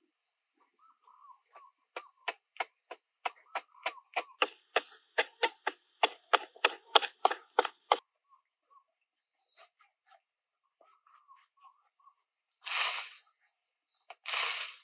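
Digging in soft earth: a quick run of sharp scraping strikes that speeds up to about four a second, then stops. Near the end come two short rushing bursts as handfuls of soil are flung aside, with faint chirping in the quiet between.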